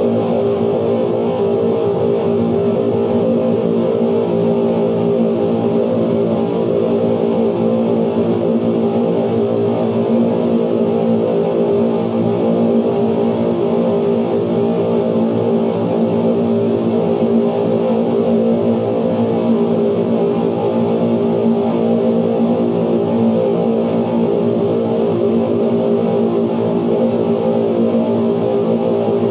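Steady, dense droning noise from 16mm film projectors playing their magnetic soundtracks, with the sound altered by light sensors on the projection screen. Many steady tones pile up at low and middle pitch and hardly change.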